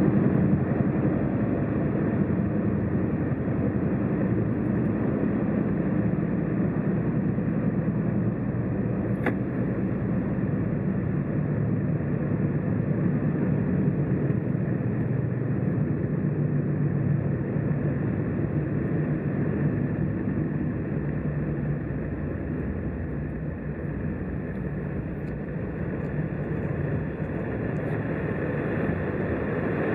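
Car driving at motorway speed: steady road and engine noise, with a single brief click about nine seconds in.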